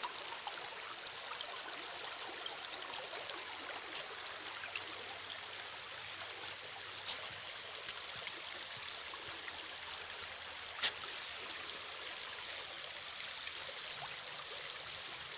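Shallow river water running over stones: a steady rushing with small ticks through it, and one sharp click about eleven seconds in.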